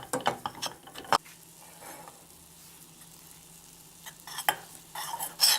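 A spoon scraping and clinking in a small saucepan, stirring a warm paste of honey, flour, oil and mustard powder over a low gas flame. A quick run of scrapes comes in the first second, then a quieter pause, then more scraping near the end.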